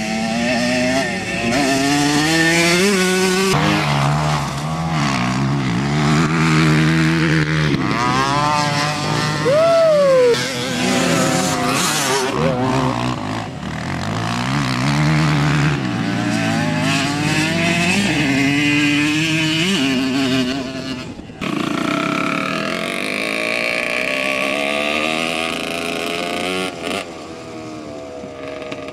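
Dirt bike engines revving, the pitch climbing and falling again and again with the throttle, with two bikes running at once. About two-thirds of the way through, the sound cuts abruptly to a steadier, higher engine note.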